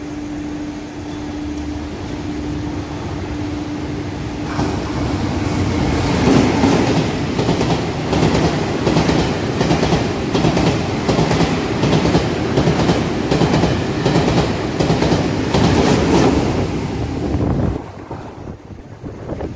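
TRA PP Tze-Chiang electric push-pull express passing through a station at speed. A steady tone gives way to a loud rush of the passing carriages, with rapid wheel clatter over the rail joints for about twelve seconds, then cuts off sharply near the end as the last car goes by.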